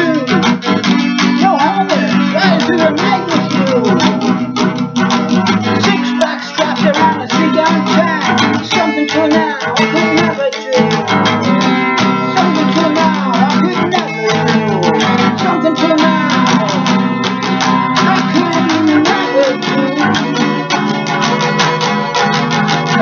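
Music: a guitar-led passage of a rock song, dense with plucked notes.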